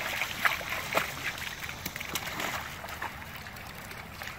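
Water splashing in a shallow creek, several splashes in the first couple of seconds and fewer after, over the steady rush of the flowing stream.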